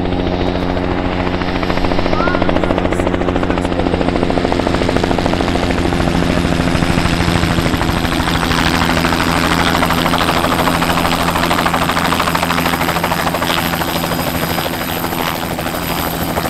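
Light helicopter flying in toward the landing spot and settling into a low hover close by, its steady rotor and engine beat continuous. About halfway in, a louder rushing noise builds as it draws near.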